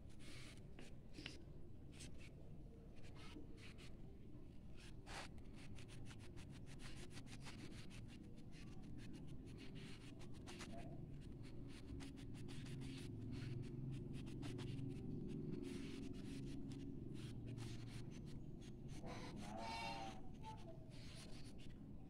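Pastel crayon rubbed back and forth on lined notebook paper, shading in colour: a faint run of short scratchy strokes over a steady low background rumble.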